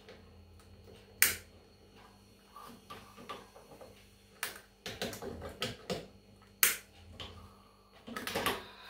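Kitchen handling at a large pot of milk: three sharp clicks of a utensil on the pot, with quieter knocks and rustling between them.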